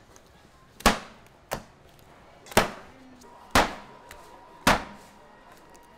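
Five loud, sharp knocks, about a second apart, each dying away quickly. A faint steady tone comes in partway through.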